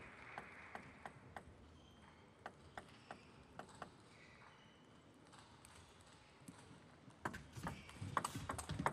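Table tennis ball bounced on the table about three times a second before a serve, about a dozen sharp clicks. After a quieter pause, near the end, the quick irregular clicks of a rally: the ball striking paddles and table in fast succession.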